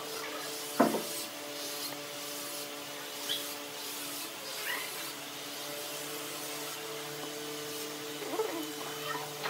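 Wood lathe running with a steady motor hum, with a turning tool scraping against the spinning wood: one loud, sharp scrape about a second in and a few fainter scratches after.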